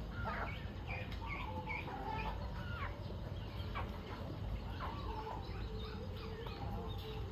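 A flock of chickens clucking and calling, many short overlapping calls, over a steady low rumble.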